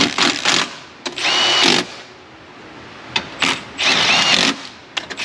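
Handheld power driver spinning in the bolts that hold the top of the radiator core support, in several short runs of about half a second, each winding up to a steady whine.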